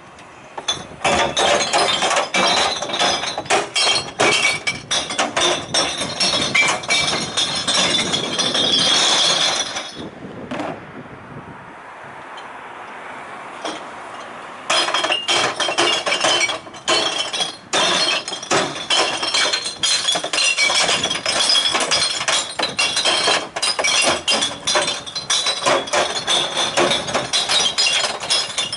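Glass bottles and jars clinking and breaking as they are tossed by hand into the onboard sorting compartments of a glass-recycling truck, a rapid clatter of impacts. There is a lull of about four seconds about a third of the way in.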